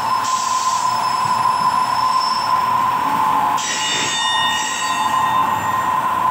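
Milling machine running with a steady whine, its cutter squealing high-pitched against metal twice as the work is fed in: briefly just after the start and for about a second around four seconds in.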